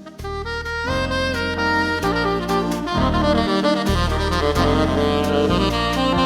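Jazz background music with a saxophone playing the melody over a bass line.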